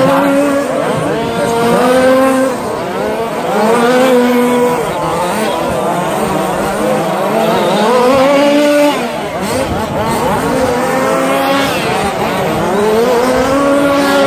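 Radio-controlled short course trucks racing, their motors whining and rising and falling in pitch again and again as they speed up and slow down around the track.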